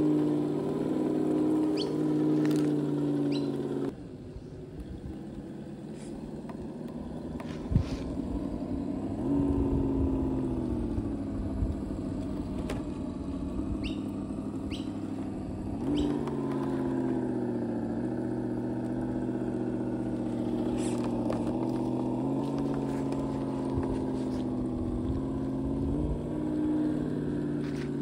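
Huangbo 1/10-scale RC crawler's electric motor and gearbox whining as it drives over rough ground, the pitch rising and falling with the throttle. The whine drops away about four seconds in and picks up again later. A few sharp clicks and knocks come through along with it.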